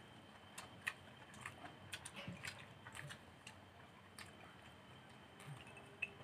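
Quiet eating sounds: scattered faint clicks and smacks of mouths chewing and fingers picking at rice and fish.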